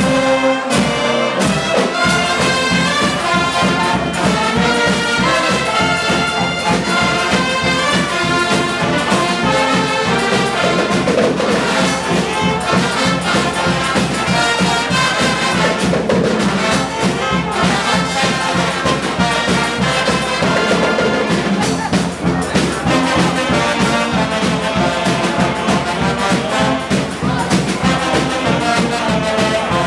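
Carnival brass band playing live: saxophones, trumpets, trombones and a sousaphone over a steady drum beat.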